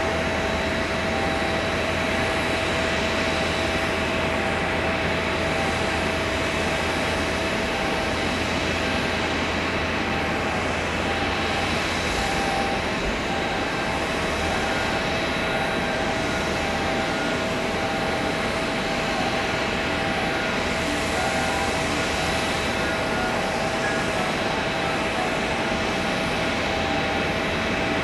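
Steady jet whine of a parked McDonnell Douglas MD-90-30 airliner: a held high tone over an even rushing noise, unchanging in level.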